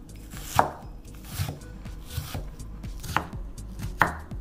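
Serrated chef's knife chopping red onion on a wooden cutting board: five sharp knocks of the blade against the board, a little under a second apart, the first and last the loudest.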